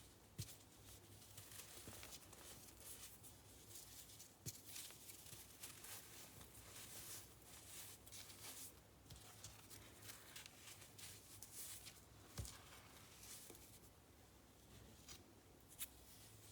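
Baking soda and cornstarch powder being pressed, squeaking and crunching softly in short bursts that come and go, with a few sharp clicks.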